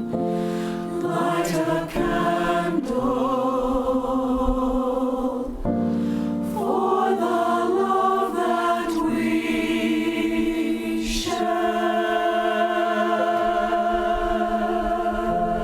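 A choir singing a holiday song, several voice parts together, ending in a long held chord in the last few seconds.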